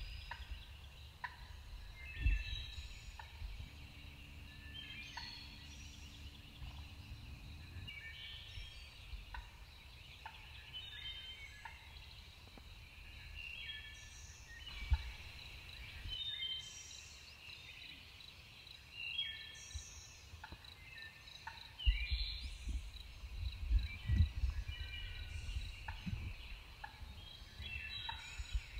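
Several birds calling in woodland: many short calls, a second or less each, follow one another throughout, over a faint steady high tone. A low rumble comes and goes early on and again near the end.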